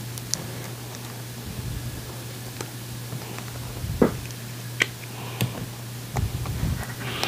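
Scattered small clicks and taps of hands handling a small metal adapter plate, its card packaging and a small tool on a tabletop, over a steady low hum.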